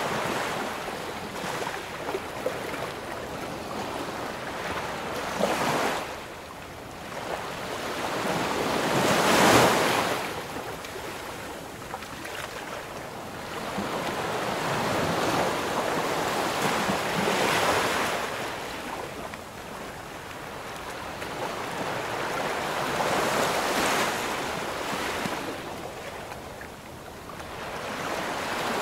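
Sea waves washing in slow surges that swell and fade every few seconds, the loudest about a third of the way in, with wind on the microphone.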